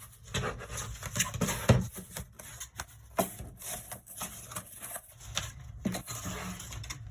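Creased cardboard divider pieces being handled and slid together into slots: irregular rustling, scraping and light taps, with a sharper knock about a second and a half in.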